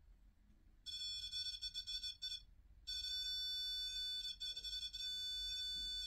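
A high, steady electronic tone with several overtones starts about a second in, wavers, breaks off briefly, then comes back and holds.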